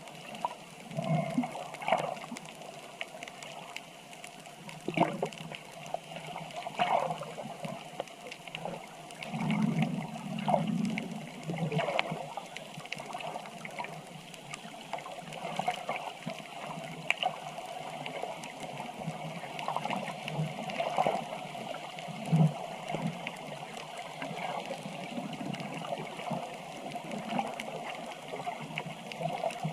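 Water sloshing and gurgling in irregular surges.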